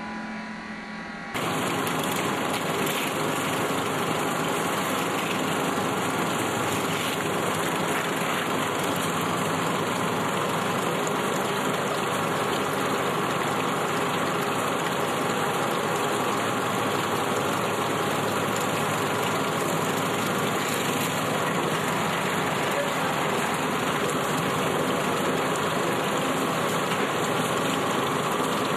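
A centrifugal olive oil separator humming, then a sudden cut about a second in to loud, steady olive-mill machinery running as it works olive paste and takes in olives.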